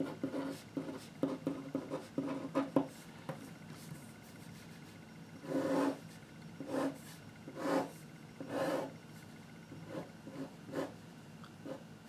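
Pen scratching on paper. First a quick run of short handwriting strokes, then four longer strokes as lines are drawn, then a few small ticks near the end.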